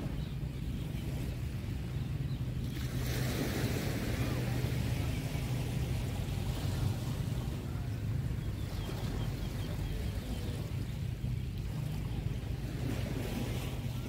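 Small waves breaking and washing up on a sandy beach. The wash swells up about three seconds in and again more softly later, over a steady low rumble.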